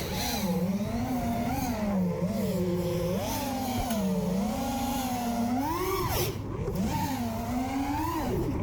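FPV quadcopter's brushless motors and propellers whining, the pitch rising and falling as the throttle is worked, with a quick swoop up and drop about six seconds in.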